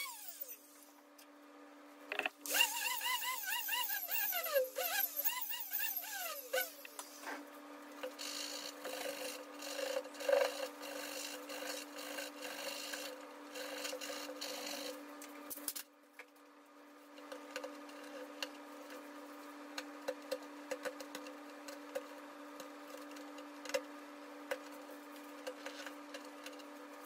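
Sanding and stripping at a ding on the fiberglass-and-epoxy rail of an EPS surfboard: an electric orbital sander runs against the glass with a wavering pitch for a few seconds, then scratchy rubbing and small clicks follow as the damaged fiberglass is worked off by hand down to the foam. A steady low hum runs underneath.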